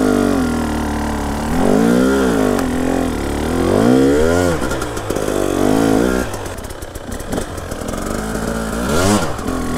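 KTM EXC 300 TPI two-stroke enduro engine under load, revving up and down in four or five bursts of throttle, with a rougher, lower stretch off the throttle between them.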